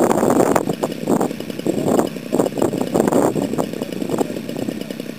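Small engine of a radio-control Stearman biplane idling on the ground, running with an uneven pulsing beat.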